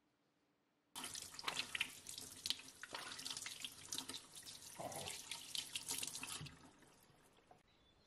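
Water running from a tap onto hands being washed and splashing into a sink. It starts suddenly about a second in and tails off about six and a half seconds in.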